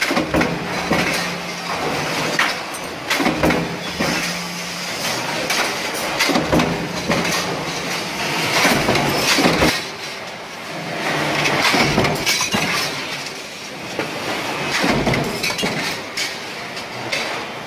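Sheet-metal stamping press on a coil-fed press line, running: repeated sharp metallic clanks of the die strokes and the parts, over a busy factory clatter. A steady machine hum stops about five seconds in.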